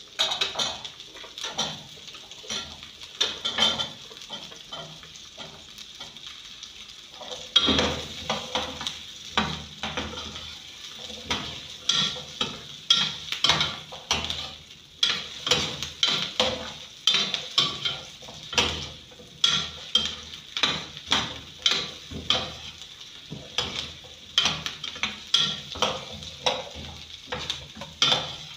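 Sliced carrots sizzling in oil with onions in a stainless steel saucepan. A metal spoon scrapes and clatters against the pan as they are stirred. The strokes are sparse at first, then from about a quarter of the way in they come regularly, about two a second.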